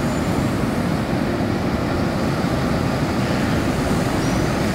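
Recorded sea ambience: a steady rushing wash of the ocean, with a faint high dolphin whistle near the end.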